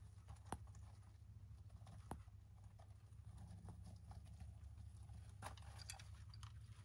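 Faint scratching and small clicks of young hamsters scurrying over wood-shaving bedding, with sharp ticks about half a second and two seconds in and a cluster of small clicks near the end as two of them nibble at the plastic food dish. A steady low hum lies underneath.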